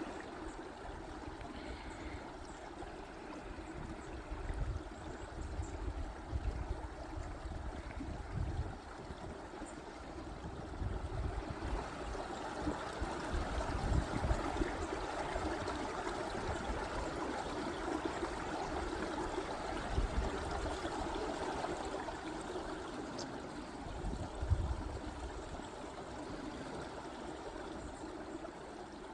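Mountain stream running under snow, a steady rush of water, a little fuller in the middle, with occasional low rumbles.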